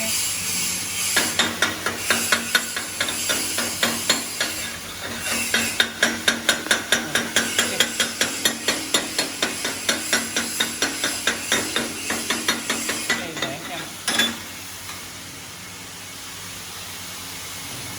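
Semi-automatic MIG/CO2 welding arc crackling and sizzling, the noise rising and falling about three times a second as a bead is laid. It stops about 14 seconds in with a short loud burst, and a steady low hum is left.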